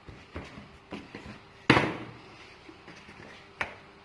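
Knife chopping through puff pastry dough onto a cutting board: a few sharp knocks, the loudest a little under two seconds in.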